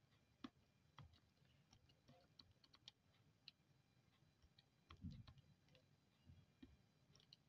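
Faint, irregular clicks of a Casio scientific calculator's keys being pressed one at a time, with a soft low thump about five seconds in.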